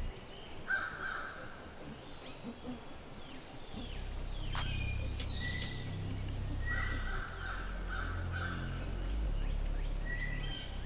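Woodland birds calling: short whistled notes, and harsh raspy calls once about a second in and again in a short run of several later on. A cluster of sharp clicks comes near the middle, over a steady low rumble.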